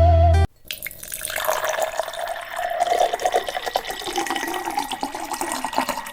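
Music cuts off abruptly about half a second in, then water runs and trickles steadily into a container.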